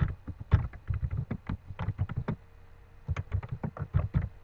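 Typing on a computer keyboard: a run of quick, irregular keystrokes with a short pause a little past the middle.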